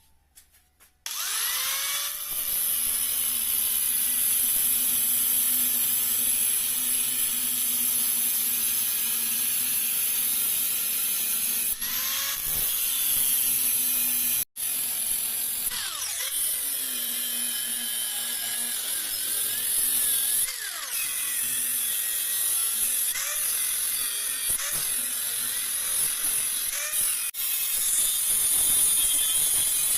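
Electric power tool starting about a second in and running steadily, its motor pitch dipping and recovering again and again as it is pressed against the work. It cuts out for an instant about halfway through.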